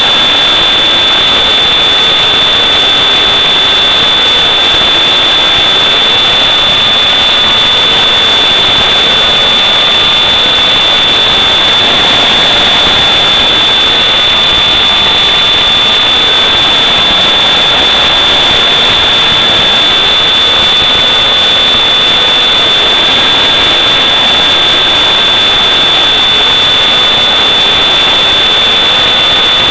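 FPV model aircraft's motor and propeller heard through the onboard camera's microphone: a loud, continuous buzzing whine whose pitch drifts slowly up and down with throttle, over a steady high-pitched tone and hiss.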